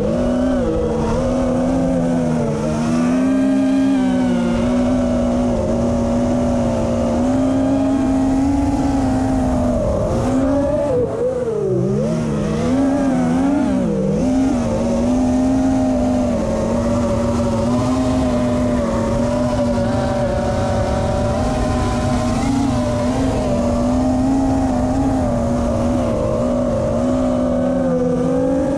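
Chameleon FPV quadcopter's brushless motors and propellers whining in flight, the pitch wavering with throttle. About ten seconds in, the pitch drops and swings up and down for a few seconds as the throttle is chopped and punched, then steadies again.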